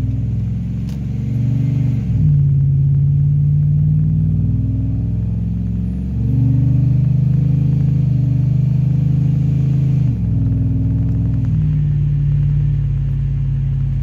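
Ram pickup's Hemi V8 with a TorqStorm centrifugal supercharger, heard from inside the cab while driving. The engine note runs steady, dipping briefly in pitch about 2, 6 and 10 seconds in.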